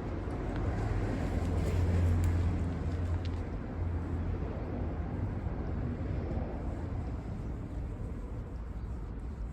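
Electric mechanical polisher running steadily with cutting compound on a plastic headlight lens, a low motor hum, a little louder for the first few seconds before easing off.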